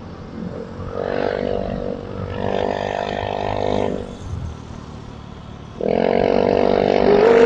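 Motorcycle engine running under throttle while riding, easing off about four seconds in and pulling strongly again near the end.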